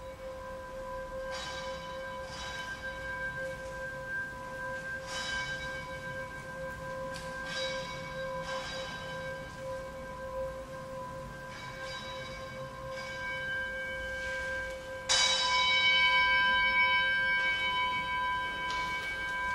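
A bell-like instrument struck again and again at uneven intervals, the same few clear tones ringing on between strokes; a harder strike about fifteen seconds in is the loudest.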